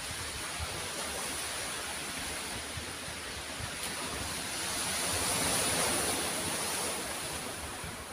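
Surf washing onto a pebbly beach: a steady hiss of waves that swells and fades again about halfway through.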